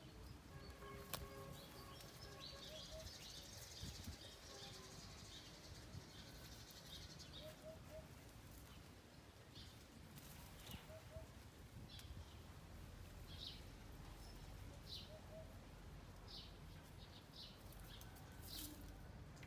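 Near silence: faint outdoor ambience with scattered short, high chirps.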